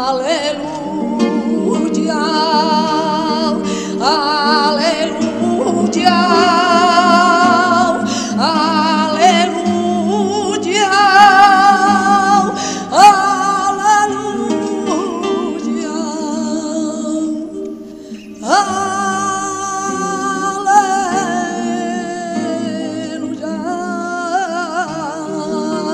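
A woman singing flamenco-style, holding long notes with wide vibrato over acoustic guitar. The voice drops away briefly about two-thirds of the way through, then a new phrase starts on a high note.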